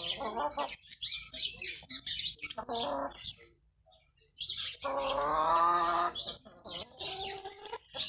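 Small birds chirping quickly and high, over which a chicken gives long drawn-out calls, the longest a little after the middle and lasting over a second.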